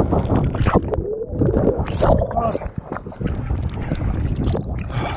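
Rough water sloshing and gurgling around the microphone, with wind buffeting it. There is a wavering, warbling gurgle from about one to two and a half seconds in.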